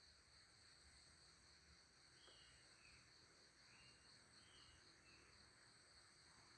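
Near silence with a faint, steady high-pitched insect chorus of the cricket kind. A few short chirps come in the middle.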